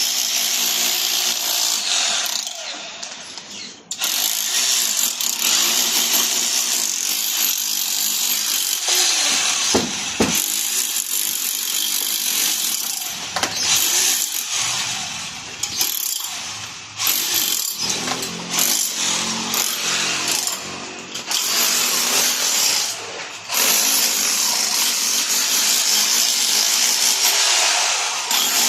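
A power tool running hard with a loud, harsh, high-pitched noise in long stretches. It drops away about three to four seconds in, then starts again and keeps going with several brief dips.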